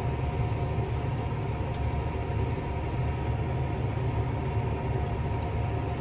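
Tractor's diesel engine running steadily, heard from inside the cab: an even low rumble with a few steady humming tones above it.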